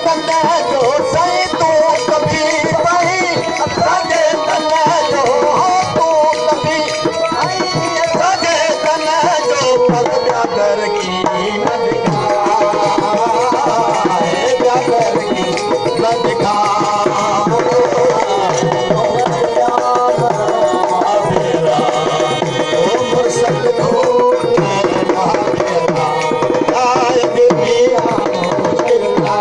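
Live South Asian folk music: a hand drum keeps a rhythm under a wavering melody, with a steady drone beneath.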